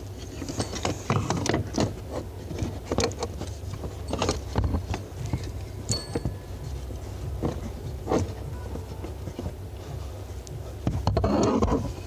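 Hands working the accelerator pedal assembly under the dashboard: scattered clicks, knocks and rubbing of plastic and metal parts, busier just before the end.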